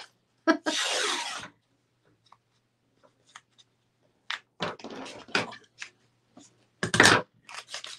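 Green painter's tape being pulled off the roll, a rasping rip about half a second to a second and a half in, followed by scattered clicks and rustles as the tape is pressed down and snipped with scissors, the sharpest clicks near the end.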